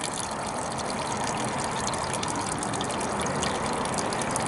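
Toilet flush water running steadily out of the end of a sewer drain pipe into a bucket.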